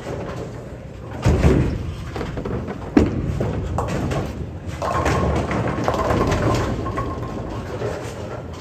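Bowling alley noise: a heavy thud with a short rumble about a second in, typical of a bowling ball landing on the lane, then a sharp knock about three seconds in, then a couple of seconds of clattering noise.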